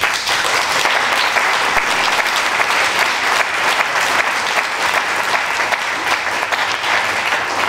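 Audience applauding, starting suddenly and continuing steadily.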